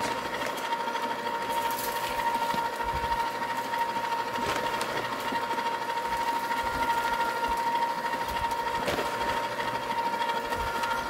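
Electric bucket-style ice cream maker's top-mounted motor running steadily, churning the canister in its packing of ice and rock salt: an even whirring hum at one constant pitch.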